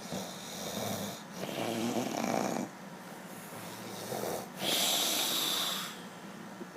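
A man snoring in his sleep: a run of noisy, rasping breaths, then a pause, and a louder hissing breath about five seconds in.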